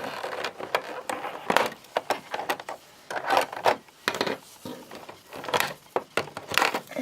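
Plastic toy packaging being handled: irregular clicks, crackles and rustling as a boxed Transformers action figure and its accessories are freed from the plastic tray.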